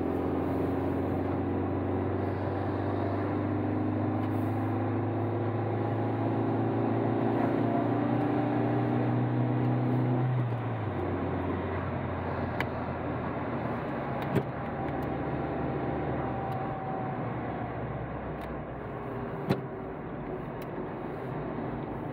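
Car engine and road noise heard from inside the cabin while driving, the engine note rising slowly and then dropping about halfway through. A few short sharp clicks follow later on.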